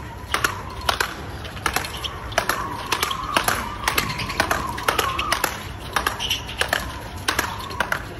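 Speedball paddles striking the tethered ball in a fast doubles rally: sharp clacks at about two a second, one after another without a break.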